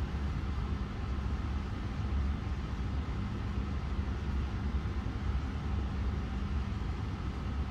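Steady low rumble of background noise, even throughout, with a faint hum.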